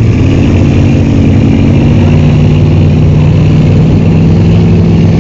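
A truck engine running steadily at low revs, loud and even, with a slight rise in pitch at the start.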